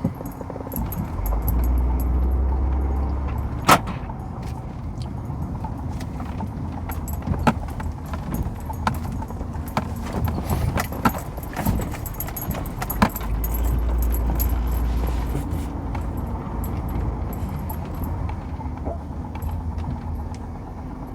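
Road and engine noise heard inside a moving car's cabin: a steady low rumble that swells twice, with scattered light clicks and rattles from the interior.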